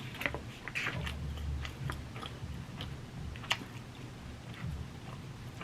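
A person chewing and biting food close to the microphone: wet mouth clicks and smacks with a few sharper snaps, from eating a steak and chicken taco bowl.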